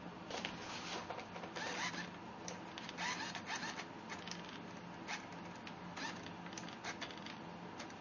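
Irregular bursts of scratching, rustling and clicking as a Riok cricket and a giant house centipede scrabble and grapple on the floor of a small clear-walled arena, over a steady low hum.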